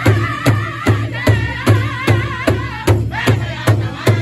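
Powwow drum group singing around a large shared drum: several drummers striking it together about two and a half times a second, under a chorus of high-pitched, wavering voices.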